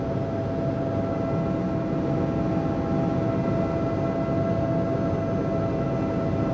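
Helicopter running: a steady drone of engine and rotor with a constant high whine over it.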